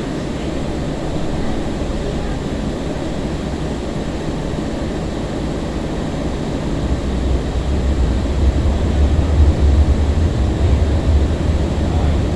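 Breda LRV3 light rail car under way, heard from inside the car: a steady rolling noise, with a deep rumble that grows louder about seven seconds in.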